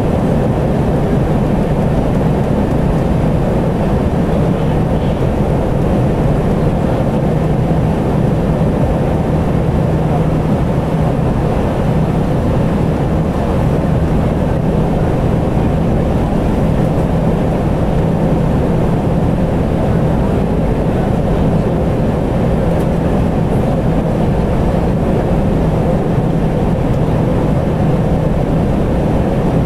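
Steady in-flight noise inside a Boeing 747 cockpit at cruise altitude: an even rush of airflow with a low hum beneath.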